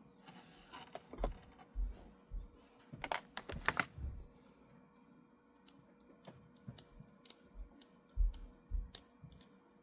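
Irregular small clicks, taps and light knocks from handling a model locomotive's mechanism while oiling its drive gears, with a few dull bumps against the work surface. There is a dense run of clicks a few seconds in and more scattered clicks near the end.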